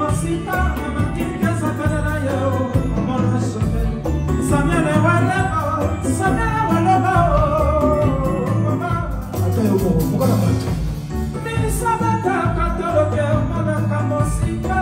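Live Congolese rumba band with a man singing lead into a microphone, over a steady bass and drum beat.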